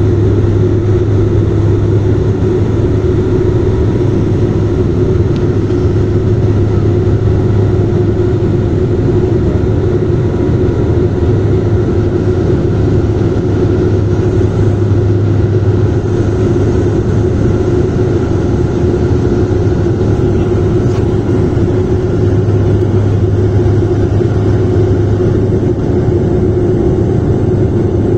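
Airliner in descent with its landing gear extended: a loud, steady drone of engines and rushing air, with an even low hum and no change in pitch.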